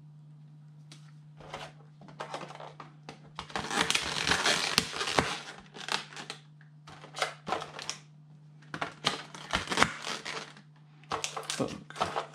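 Stiff clear plastic blister packaging being handled and pulled apart, crackling and clicking in irregular bursts, loudest in a long crackle about four seconds in. Booster packs rustle as they are handled near the end, over a steady low hum.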